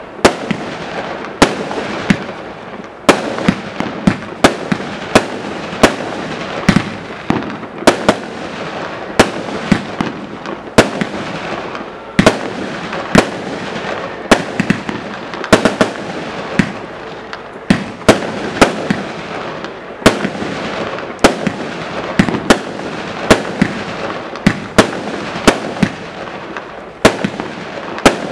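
Imperial Lotus IL2001 20 mm single-ignition firework cake firing mixed-effect shots straight up. Sharp reports come roughly once a second at uneven spacing, with a steady hiss between them.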